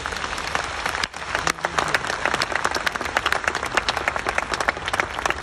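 A large audience applauding with dense, steady clapping.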